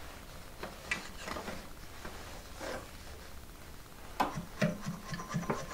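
Soft rubbing and scraping of yarn and a wooden batten against the warp strings of a Cactus Flower loom as the weft is worked in. About four seconds in, a quick run of light wooden clicks and knocks, three or four a second.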